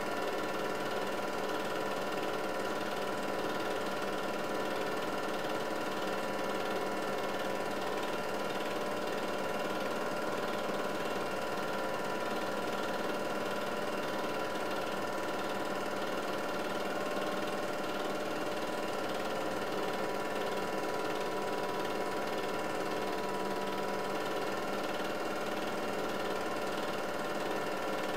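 8mm film projector running steadily, its motor and film mechanism making an even mechanical whir.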